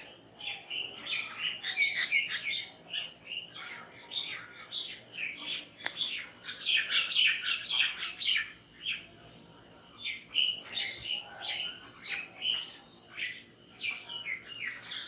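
Small birds chirping in quick clusters of short calls, busiest about a second and a half in and again around six to eight seconds in, with a few sharp clicks mixed in.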